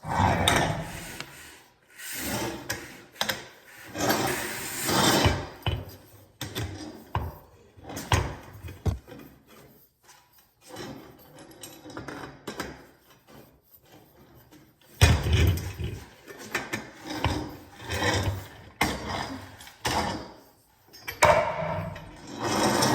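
Clothing rack parts being handled and fitted together by hand: irregular rubbing and scraping in bursts, with occasional sharp knocks and clicks.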